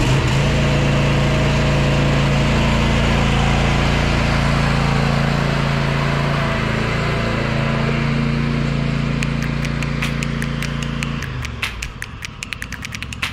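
Engine running steadily at idle just after starting, then shut off about eleven seconds in. Sharp, evenly spaced ticks come in near the end.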